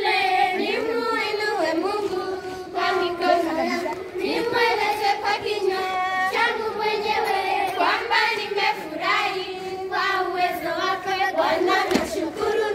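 A group of children singing a song together in chorus, with hand clapping.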